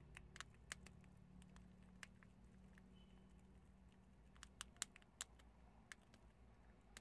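Prairie dogs chewing chickpeas held in their paws: sharp little crunches, a flurry in the first two seconds and another from about four and a half seconds in.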